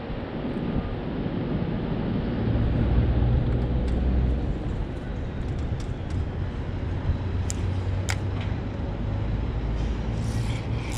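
Steady low rumble of road traffic on the bridge overhead, with a couple of light clicks about two thirds in.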